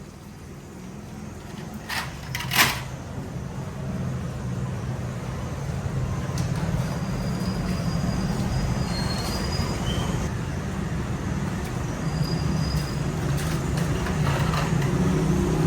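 A low, steady machine hum that grows slowly louder, after two sharp knocks a little over two seconds in.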